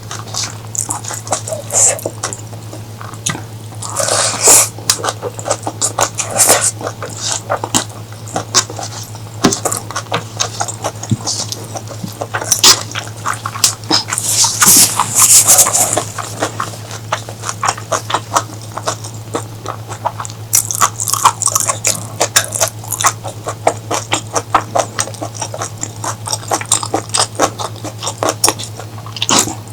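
Close-miked mukbang eating sounds: dense wet chewing and mouth clicks, with a few louder, longer noisy stretches about four seconds in and around fifteen seconds. A steady low hum runs underneath.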